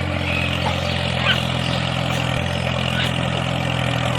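A motor running steadily at an even speed with a low, unchanging hum, with a few short faint high chirps over it.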